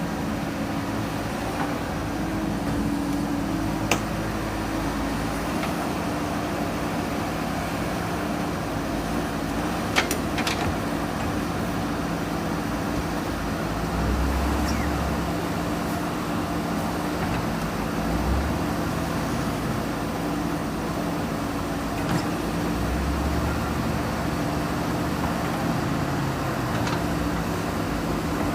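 Diesel engine of a JCB 3DX backhoe loader running steadily while it works soil, with a few sharp clanks and short low thuds along the way.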